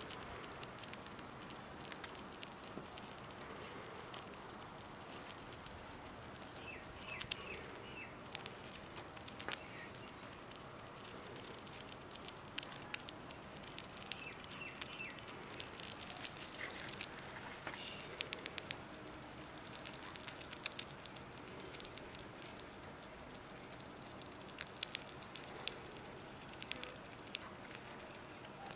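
Pet rat chewing a moth held in its paws: an irregular scatter of small, sharp crunching clicks from its teeth, busier after the first few seconds.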